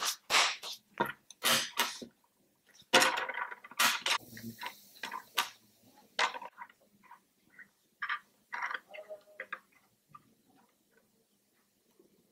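Irregular small clicks and taps of coloured pencils and hands on a hard desktop, with some rustling of paper.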